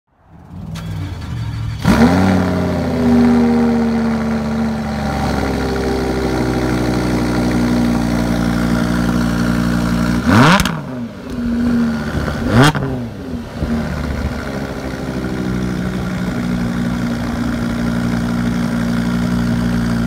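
Lamborghini Huracán's V10 engine starting with a rev flare about two seconds in, then settling to a steady idle. It is blipped sharply twice, around ten and twelve seconds in, before dropping back to idle.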